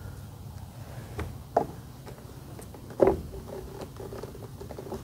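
Clicks and knocks of PVC pipe fittings being handled and pressed together. The loudest knock comes about three seconds in and is followed by a faint hollow ring.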